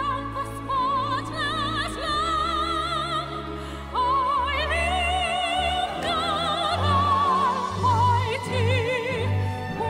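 Background song: a woman singing long held notes with a wide vibrato over sustained accompaniment and a steady bass line.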